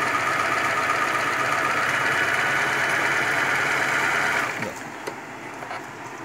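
Butterfly JHQ3010 electric sewing machine running at steady speed, sewing a long straight stitch (setting C). It stops suddenly about four and a half seconds in, followed by a few faint clicks.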